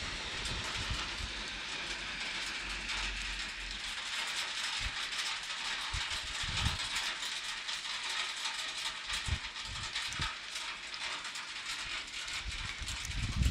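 Hail mixed with rain falling steadily: a continuous hiss with many fine ticks of hailstones striking, and a few short low thuds.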